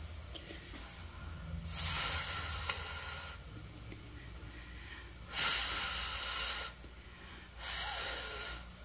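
A person blowing three long, hard breaths into a frost-lined freezer to clear the mist out, each gust of air lasting about a second or more, over a steady low hum.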